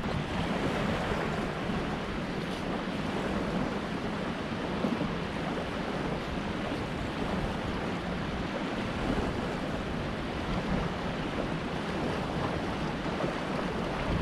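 Steady outdoor wind rushing and buffeting the microphone, an even hiss with a rumbling low end and no distinct events.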